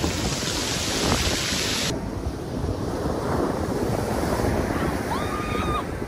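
Surf breaking and washing up a shingle beach, with wind buffeting the microphone. The sound turns duller about two seconds in, and a brief high call sounds near the end.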